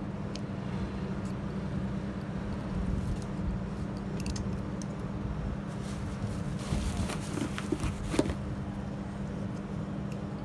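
Metal motor faders for a Yamaha DM1000 mixer clicking and rattling as they are handled and set down on a workbench, with a cluster of clicks after about six seconds, the sharpest near the end. Under it, a steady low hum and rumble.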